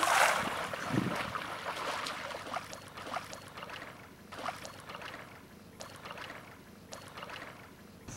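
A cast net slapping down onto shallow water with a broad splash, fading over the first couple of seconds. After that, fainter splashes of wading and of the net being drawn in through the water.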